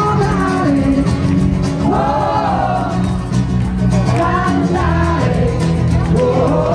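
Live band music: a male singer over acoustic guitar and bass guitar, with the crowd clapping along to the beat.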